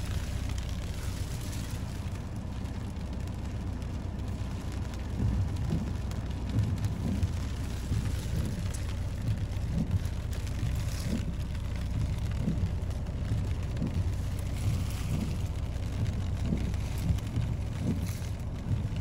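Strong storm wind buffeting the phone's microphone in a gusting low rumble, with the hiss of rough waves breaking against the seawall and pier now and then.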